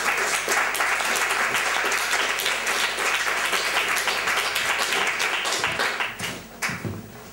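Audience applause, dense clapping that thins out and dies away about six seconds in.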